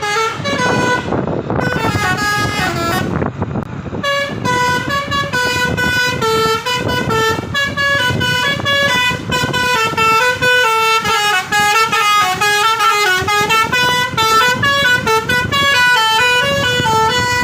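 Basuri telolet musical air horn playing a fast tune of short, stepped notes, with a brief break about three seconds in. A rough low rumble runs underneath.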